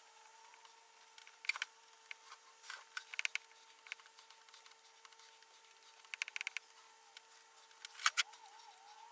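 Short bursts of faint scraping and clicking, with pauses between, as hide glue is spread over the tool chest's wooden lid. A faint steady hum sits under it.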